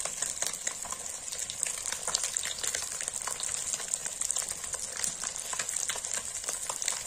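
Bhetki (barramundi) fish steaks frying in hot oil in a black kadai: a steady sizzle with frequent small pops and crackles.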